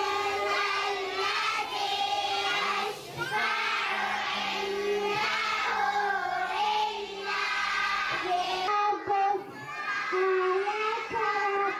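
A group of children singing together in unison, in long held phrases. Near the end a single young girl sings into a microphone.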